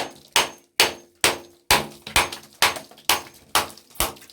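Hammer striking a small electric motor's plastic casing over and over, about ten even blows at roughly two a second, each with a short clang, breaking the casing open to get at the copper windings inside.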